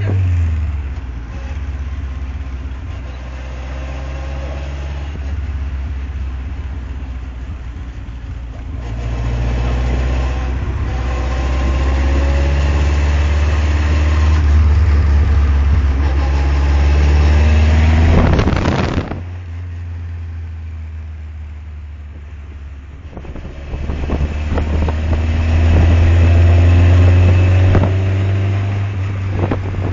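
Lotus Seven's engine running as the open car is driven, its note rising and falling as it accelerates and eases off, louder in stretches and quieter in others. A brief loud rush of noise comes about eighteen seconds in.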